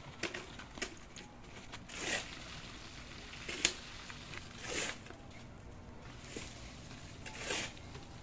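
Slow scuffing steps of rubber slippers on gritty dirt ground: about four soft scrapes a second or more apart, one with a sharp click.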